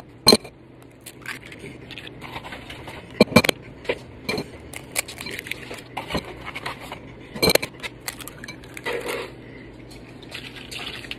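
Eggs being cracked against a bowl: a few sharp knocks of shell on the bowl, the loudest about three and seven seconds in, with small clinks and handling noise between.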